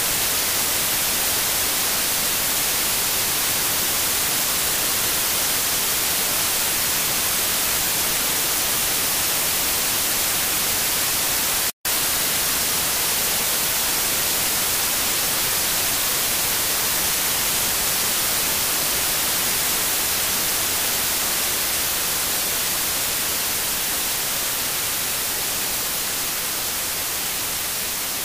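Steady static hiss like white noise, strongest in the high end. It cuts out for an instant about twelve seconds in and fades a little near the end.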